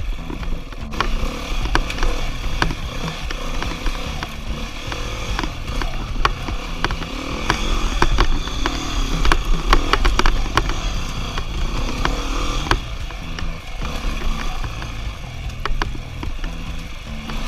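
Beta four-stroke enduro dirt bike engine running with the revs rising and falling as the throttle opens and closes, with scattered knocks and clatter over rough trail.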